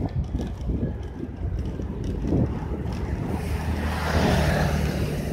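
Wind buffeting a phone microphone on a moving bicycle, with a steady low rumble; the noise swells to a louder hiss about three seconds in, and a low steady hum comes in at the same time.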